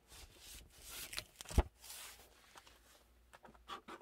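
Paper sleeves rustling and sliding as a 78 rpm record is drawn out of an old record album book, with one short knock about one and a half seconds in.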